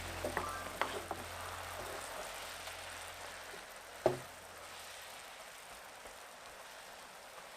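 Steak frying in butter in a pan, a steady sizzle. There are a few light clicks in the first second and a single knock about four seconds in.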